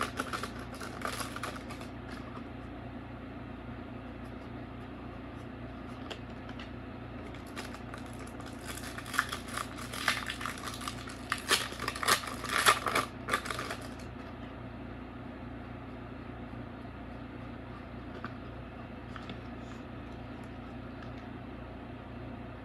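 Foil wrapper of a Pokémon TCG Evolving Skies booster pack crinkling as the pack is torn open and the cards are pulled out, briefly at the start and again for several seconds in the middle. A steady low hum runs underneath.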